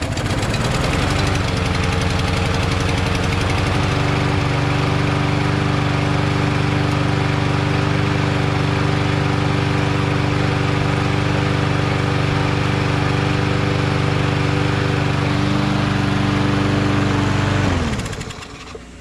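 Yard Machines MTD push mower's single-cylinder Briggs & Stratton 550EX auto-choke engine, running after a pull start. It speeds up over the first few seconds and then runs steadily. The owner finds the speed a little low and blames the throttle spring tension. About 18 seconds in it is shut off and winds down.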